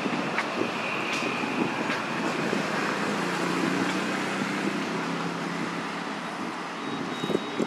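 Steady outdoor background noise with a distant engine humming through the middle, and small scattered clicks.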